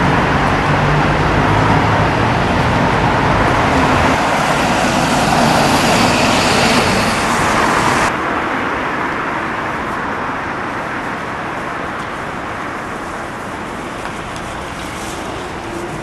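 Road traffic with a bus's diesel engine running close by. About eight seconds in the sound drops suddenly to quieter, steady traffic noise.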